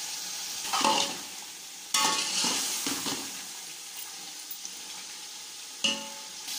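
Chicken in masala gravy sizzling in a steel pot while a metal spoon stirs it, with a few louder scrapes of the spoon against the pot.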